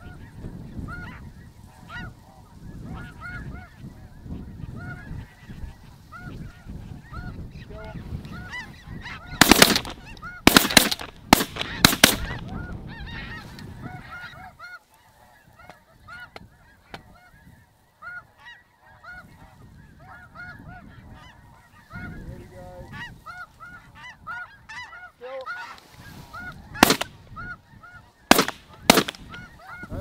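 Snow geese calling overhead, a steady chorus of many overlapping high honks, with wind rumbling on the microphone. Two volleys of shotgun fire cut through it: about five shots around ten seconds in, and three more near the end.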